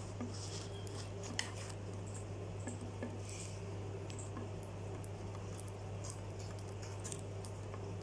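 Fischer's lovebirds pecking seed from a wooden table and a plastic feeder: irregular small clicks and taps of beaks on wood and plastic and seeds being cracked, over a steady low hum.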